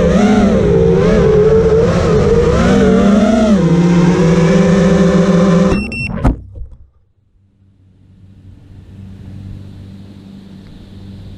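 Quadcopter's T-Motor F80 brushless motors and props whining in flight, the pitch wobbling up and down with throttle, then holding steadier and lower before cutting off suddenly about six seconds in. A faint hiss of wind follows.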